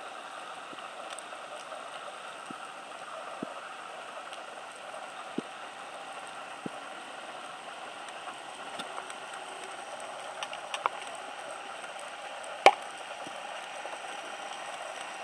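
Underwater sound picked up through a camera housing: a steady hiss with scattered faint clicks, then about twelve and a half seconds in a single sharp, loud crack of a speargun being fired.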